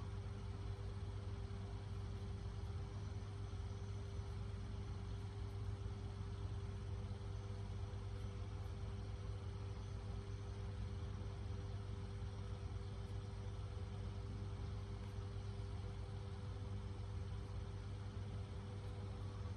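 Steady low hum with a faint hiss over it, unchanging throughout.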